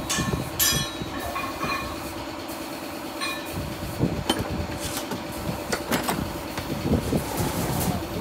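A steady machine hum with irregular sharp knocks and clatter over it, the knocks coming roughly once a second in the second half.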